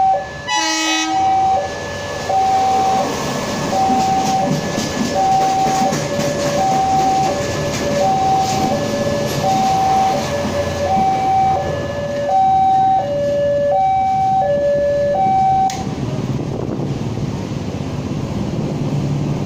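Railway level-crossing warning alarm sounding an alternating high and low electronic tone, roughly one pair a second, while rail track-maintenance machines (tamper and ballast regulator) rumble past over the crossing. A short horn blast comes about a second in. The alarm cuts off about 16 seconds in, leaving a steady traffic rumble.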